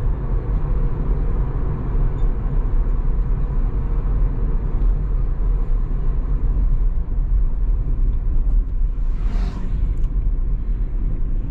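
Road and wind rumble inside the cabin of a Tesla Model 3 driving on a country road, with no engine sound. There is a deep steady rumble and a brief hiss about nine and a half seconds in.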